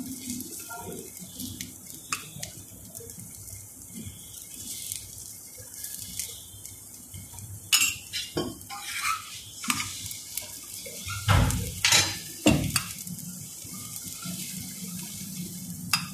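A paratha frying in oil on a flat tawa griddle, with a metal spoon scraping and clinking against the griddle as the oil is spread. Loud sharp knocks come about eight seconds in and again in a cluster around eleven to twelve seconds in.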